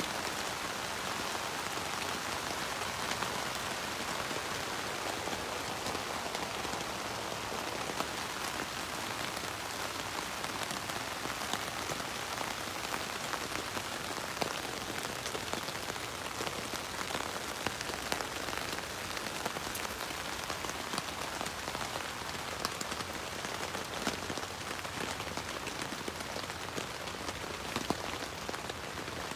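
Steady rain falling on the fabric of a Luxe Twinpeak tent, heard from inside: an even hiss scattered with many small sharp drop ticks.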